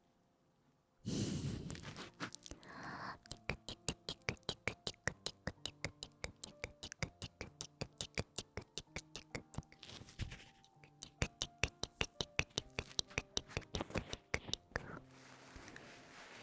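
Rapid, evenly spaced ASMR clicking or tapping close to the microphone, about five clicks a second, with a brief pause about two-thirds of the way through. There is a short rustle near the start, and soft background music with held notes underneath.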